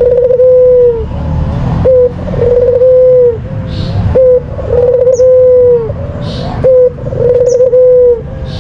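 White puter dove cooing in a repeating phrase: a short clipped note, then a long steady coo of about a second, over and over about every two and a half seconds.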